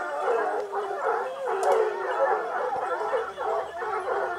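A pack of Gascon Saintongeois hounds giving tongue together, many overlapping baying and howling voices without a pause: hounds in full cry while running a wild boar.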